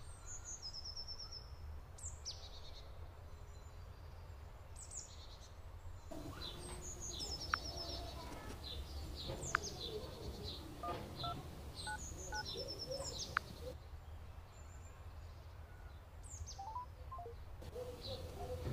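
Birds singing in the background: one repeats a short high phrase that drops and ends in a quick trill every few seconds. A few sharp clicks and a short run of phone keypad beeps come about two-thirds of the way in, as the number is dialled.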